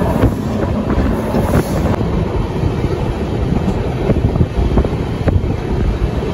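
Passenger train running at speed, heard from inside the carriage: a steady rumble mixed with wind buffeting the microphone at the window, with a few light knocks here and there.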